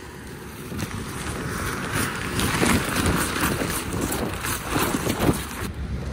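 Close rustling and handling noise of a nylon rain poncho and a plastic bag against the microphone, with wind noise, getting louder over the first two seconds and staying uneven.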